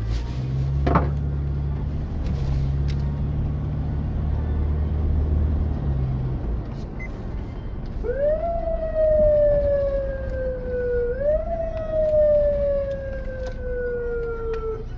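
Police car siren wailing in two slow cycles from about halfway through: each time it sweeps up quickly, then falls slowly over about three seconds. Before it, a vehicle's engine and road noise hum steadily.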